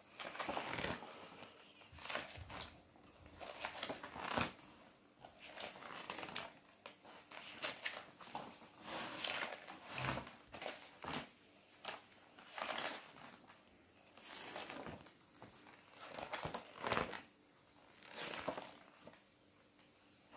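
Stiff paper pages of a large picture book being turned and handled by a child's hands: irregular rustles and flaps of paper, one every second or two.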